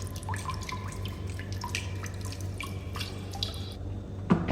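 Wet mouth clicks and smacks of someone chewing grilled chicken off the bone, a scatter of short irregular ticks.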